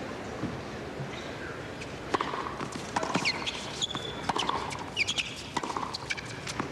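A hushed tennis-stadium crowd waits out a serve at match point. From about two seconds in there are scattered sharp clicks and taps, among them a tennis ball bounced on the court before the serve, along with low murmurs and a couple of high chirping whistles.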